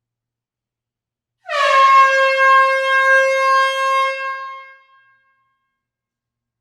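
Air horn blowing one long blast of about three seconds, its pitch dropping slightly at the start, then holding steady before fading out.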